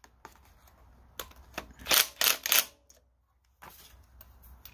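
Sharp metallic clicks from a socket driver snugging the mounting screws of a new ignition coil on a Briggs & Stratton Intek V-twin: one click a little over a second in, then three quick ones around two seconds in.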